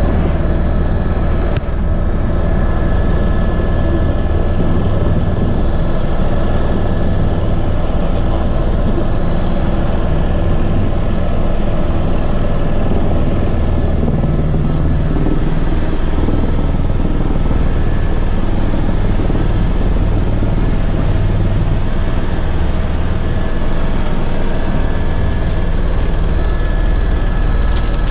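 Tour helicopter in flight: the engine and rotor make a steady, loud drone with no change in level.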